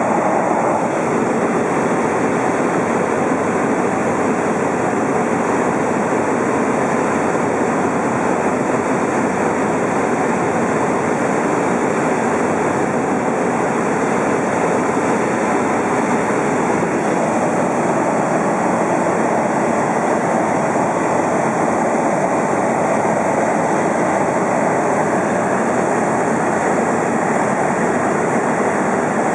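Steady cabin noise inside a single-engine high-wing Cessna in flight on its landing approach: the engine and propeller drone blended with wind rush, loud and unchanging.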